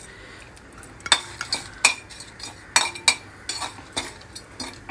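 A metal spoon stirring in a kadai, scraping and clinking against the pan at irregular moments, as methi seeds, dal and dry red chillies fry in oil. The clinks begin about a second in.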